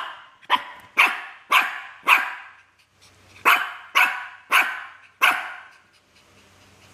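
Small dog (Shih Tzu) barking in two runs of short barks, about two a second: five, a pause of about a second, then four more.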